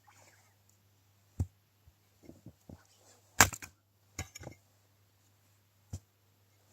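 Firewood being handled: irregular sharp wooden knocks and cracks, about five strong ones with softer knocks between, the loudest about three and a half seconds in.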